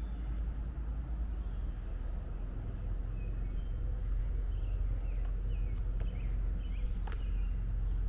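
Steady low rumble of wind and handling noise on a camera carried along a forest trail. Short bird chirps come in about halfway through, along with a few sharp clicks near the end.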